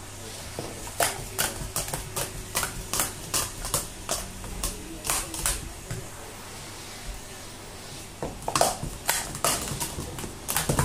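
Plastic sport-stacking cups clacking against each other and the mat as they are stacked and unstacked, in quick runs of sharp clicks. The clicking thins out for about two seconds in the middle, then picks up again.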